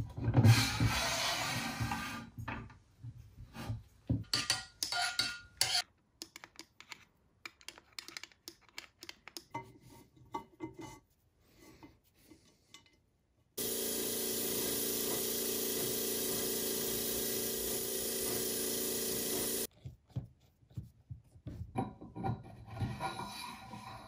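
Cast-iron drill press parts being handled and fitted: the head casting scrapes and clatters as it slides down the steel column, followed by scattered metal clicks and clinks. Midway a steady sound of several held tones runs for about six seconds and cuts off abruptly.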